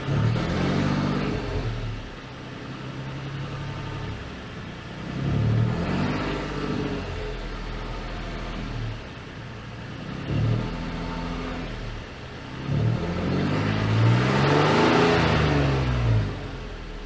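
2007 Nissan Xterra's 4.0-litre V6 idling and revved four times, the pitch climbing and falling back to idle each time, the last rev longer than the others. The owner suspects an exhaust leak and rattle behind a P2A00 air-fuel sensor code.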